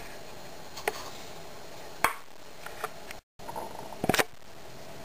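A few light taps and clicks as cut aluminium pop-can pieces are handled and set down, over a steady faint hiss. The sound cuts out for a moment near the middle.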